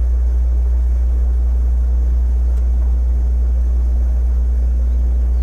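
Steady low drone of a boat motor running at an even speed, with a faint steady hum above it.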